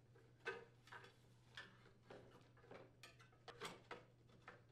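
Faint, irregular light clicks and taps, about nine of them, from a black plastic muffler cover being handled and fitted onto a snowblower engine.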